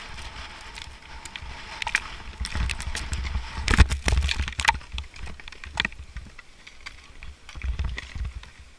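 Wind buffeting a helmet camera's microphone as skiers race fast downhill, with skis scraping and clattering on the snow. About four seconds in comes a crash: a cluster of loud knocks and clatters as skis and bodies hit the snow, then more scattered knocks.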